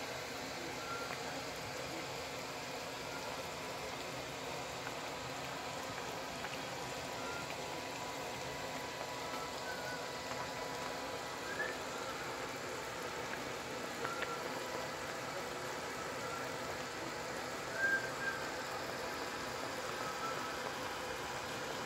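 Pot of beef and vegetable soup simmering: a steady hiss with soft bubbling and scattered small pops, the loudest about 18 seconds in.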